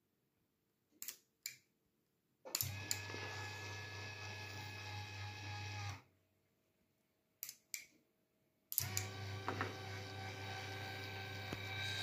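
Electric linear actuator's motor and gearbox running with a steady hum and whine for about three and a half seconds as the rod extends, then again for about four seconds as it retracts. Each run is preceded by a pair of sharp clicks from the switch and relay.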